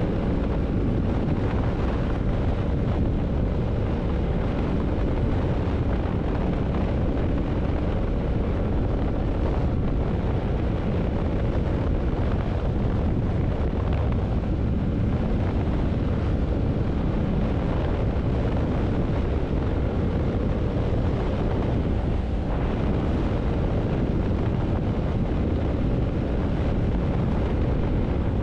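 Yamaha MT-07's parallel-twin engine running steadily while riding at cruising speed, with wind buffeting the microphone.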